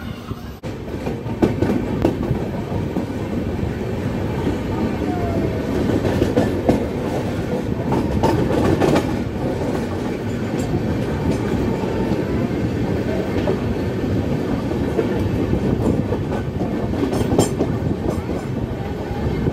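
Passenger train coach running along the track, wheels clicking over the rail joints with a steady rumble, heard from the coach doorway. The sound grows louder about a second and a half in and stays loud.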